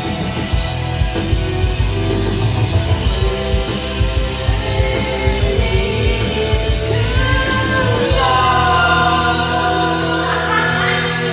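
Loud rock-style music with a driving beat, guitar and singing. About eight seconds in, the beat drops out, leaving held notes.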